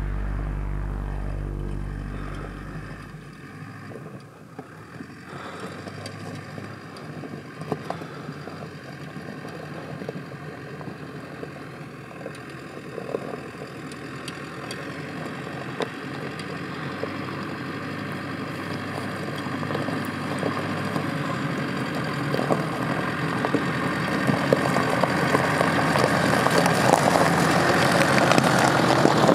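Hyundai Terracan 4x4 running on a rough off-road track: engine noise mixed with tyre and stone noise and scattered knocks, growing steadily louder toward the end. A low steady hum fades out in the first few seconds.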